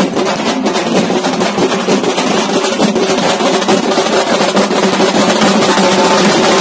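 A string of firecrackers going off in a rapid, dense crackle of bangs, with steady music tones underneath.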